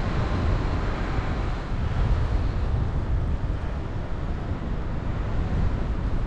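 Airflow buffeting a paraglider pilot's camera microphone in flight: a low, uneven rumble of wind with a lighter hiss above it.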